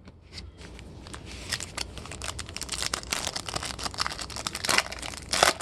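Foil trading-card pack wrapper being torn open and crinkled by hand, a dense crackling that builds and gets louder toward the end.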